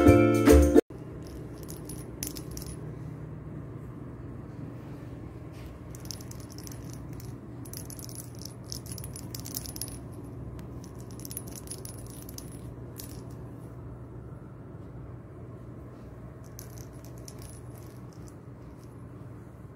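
Perforated plastic cat-toy ball with a rattle inside, rattling in short, irregular bursts as a kitten bats it across carpet, over a steady low room hum. A loud snatch of music cuts off just under a second in.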